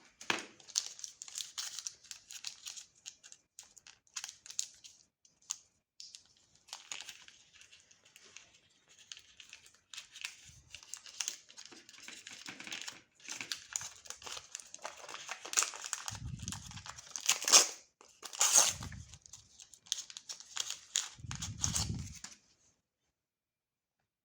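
Candy packaging being crinkled and torn open in irregular rustling bursts, with two short low rumbles near the end.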